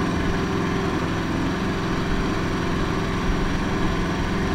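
A motor or engine running steadily: an even, unchanging hum.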